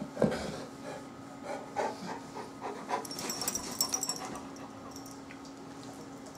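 A large black-and-tan coonhound panting with its mouth open, with a brief bump just after the start and a short high jingle of its collar tag about three seconds in.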